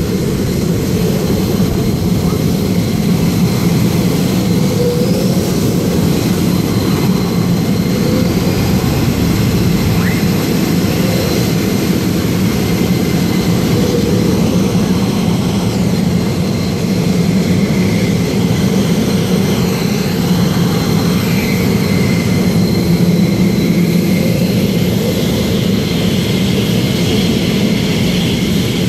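Jet engines of Thunderbirds F-16 Fighting Falcons running at idle and taxi power, a steady roar with a faint high whine that drifts in pitch.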